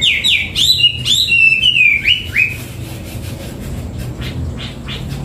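Hwamei singing: a run of loud, rapid whistled notes that sweep up and down, then after about two and a half seconds softer, shorter notes.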